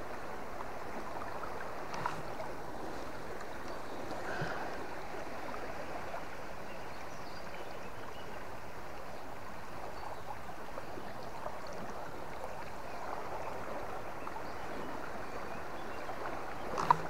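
River water flowing steadily, a constant rushing wash. A few faint knocks sound in it, and a sharper one comes near the end.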